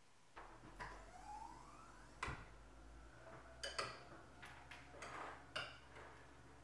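Metal spoons clinking against ceramic bowls several times as two people eat, over a low steady room hum, with a faint rising squeak about a second in.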